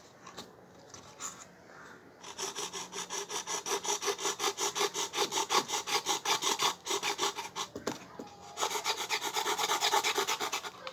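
Knife blade sawing back and forth through the wall of a paper cup: a fast, rhythmic rasping of several strokes a second. It starts about two seconds in and breaks off briefly after about seven seconds before resuming.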